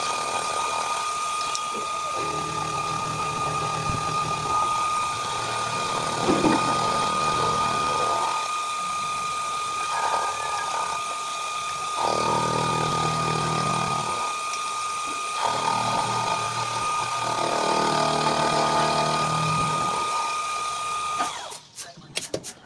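Milling machine running with a steady high whine while its cutter machines a flat into the metal tank body for a gauge seat. The cutting noise swells and fades over repeated passes, and the machine shuts off near the end.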